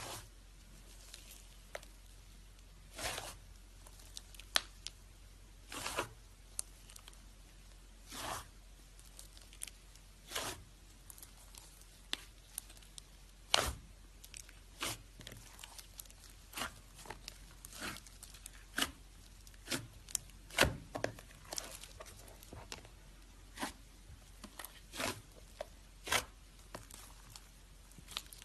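Slime being squeezed and pressed by hand, giving a run of short crackling pops as air pockets burst, roughly one or two a second.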